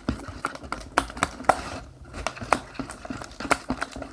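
Irregular sharp clicks and taps, several a second, of a stirring tool and small plastic container knocking together while borax activator is dropped in and slime is mixed.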